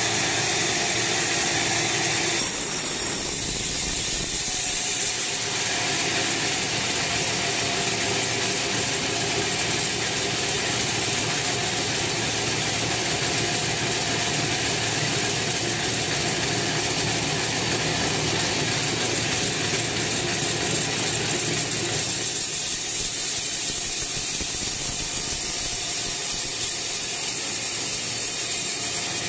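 HAITA band sawmill running, its blade cutting lengthwise through a teak log: a steady, loud, noisy hiss of blade and machine that shifts in tone about two and a half seconds in, then holds steady.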